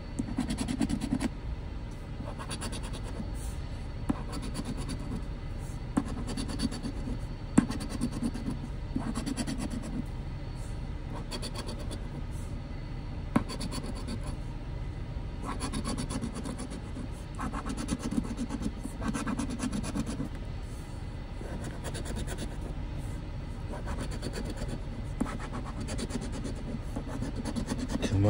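A coin scraping the coating off a scratch-off lottery ticket in repeated short strokes, with a few sharp clicks.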